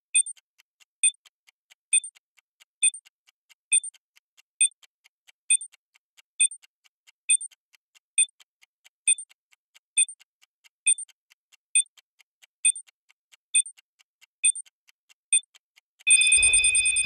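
Bomb countdown timer beeping: short, high electronic beeps repeating a little faster than once a second. Near the end the beeps give way to one steady tone as the timer runs out, with a low rumble rising under it just before the detonation.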